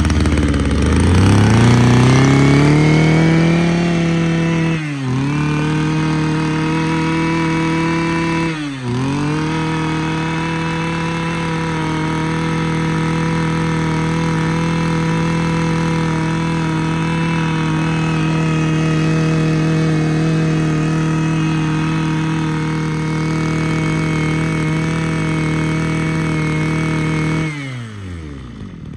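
Mitsubishi TL26 26cc two-stroke brush cutter engine running at high revs: the revs climb over the first couple of seconds, dip sharply and recover twice, then hold steady. Near the end the revs fall away quickly as the throttle is let off.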